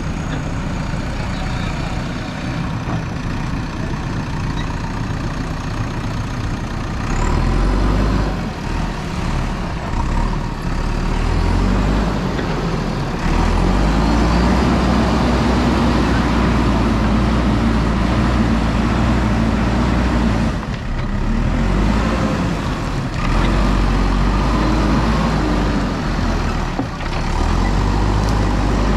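JCB 3DX backhoe loader's diesel engine working. It revs up about seven seconds in, then rises and falls with the load, easing off briefly twice near the end.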